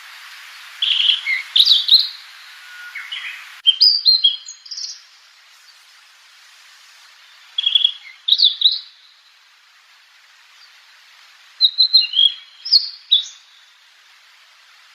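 Small wild songbird singing short, high chirping phrases in four bursts a few seconds apart, over a steady background hiss.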